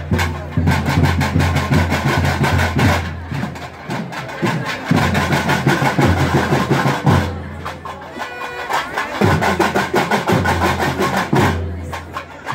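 Loud music with fast, continuous drumming.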